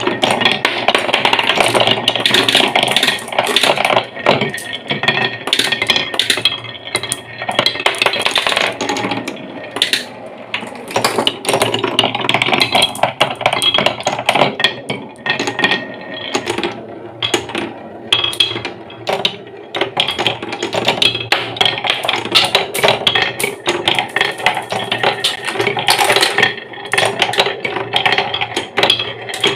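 Marbles rolling and clattering down a wooden marble run, a dense, continuous stream of clicks and knocks with some ringing.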